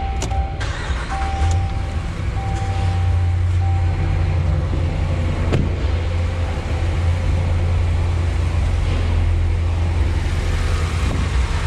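Ram 1500's 5.7 HEMI V8 started with the key, catching about a second in and settling into a steady idle, with a dashboard chime beeping over the first few seconds. The engine idles without the exhaust-manifold leak tick, its manifold gasket and broken bolts newly replaced.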